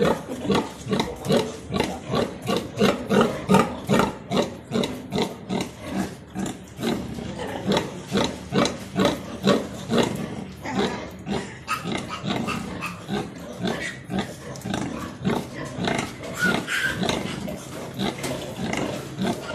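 Landrace–Duroc crossbred sow grunting rhythmically, about two grunts a second, while her piglets suckle: the sow's nursing grunts. The grunts are loudest in the first few seconds and softer after that.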